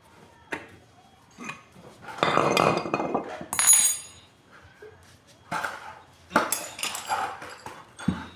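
Metal parts and tools of a 1.5 HP water pump being handled: a string of knocks and clatters, with a bright ringing metal clink about three and a half seconds in.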